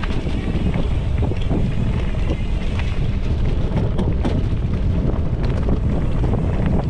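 Mountain bike rolling along dirt singletrack, heard from a handlebar-mounted camera: a steady low rumble of knobby tyres and bike vibration with wind on the microphone, and scattered small clicks and rattles.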